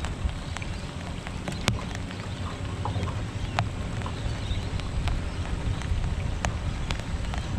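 Rain falling, a steady hiss with scattered sharp ticks of drops, over a low rumble.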